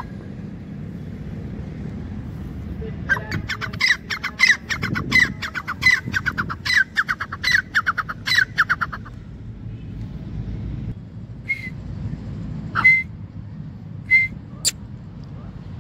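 Grey francolin calling: a fast run of repeated short calls starting about three seconds in and lasting some six seconds, then four separate single calls near the end.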